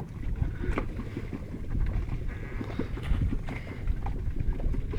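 Wind rumbling on the microphone aboard a fishing boat, with scattered small knocks and clicks.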